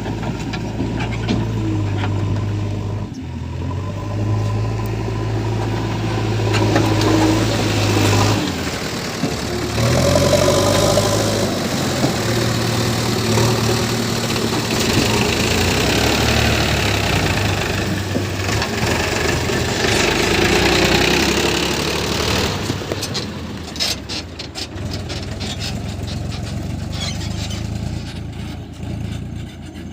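Diesel engine of a JCB 3DX backhoe loader running while it works, its note dropping and rising several times as the load changes. A rapid rattle of clicks and clanks comes near the end.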